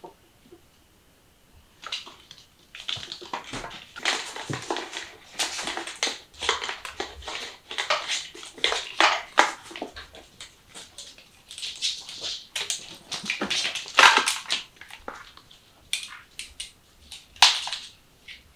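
Kittens scrambling about at play: a quick, irregular run of scuffs, taps and rustles from paws and toys on a wooden floor, starting about two seconds in.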